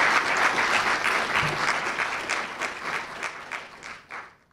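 Audience applause that thins to a few scattered claps and fades out near the end.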